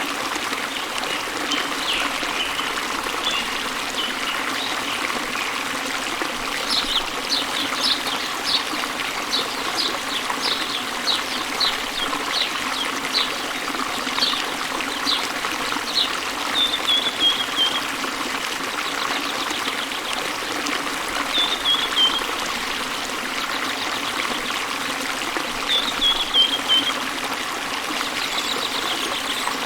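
Small waterfall spilling into a river, a steady rush of flowing water. Over it a bird sings: a run of short high chirps, about two a second, through the first half, then three brief falling trills spaced a few seconds apart.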